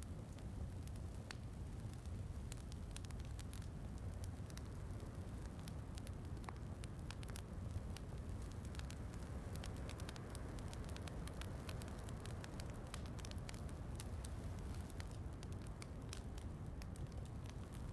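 Wood fire crackling, with frequent small irregular pops over a steady low rushing noise, mixed with a soft patter of rain.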